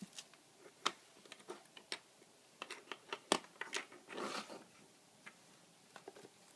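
Small plastic alarm sensor parts being handled: scattered light clicks and taps, a sharper click a little past three seconds in, and a short rustle about four seconds in.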